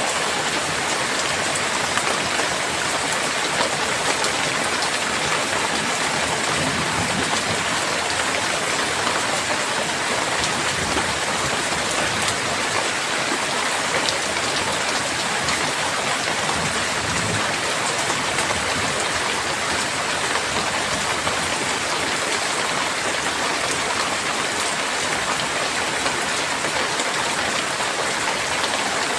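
Rain falling steadily: a dense, even hiss of many drops, with no change in strength.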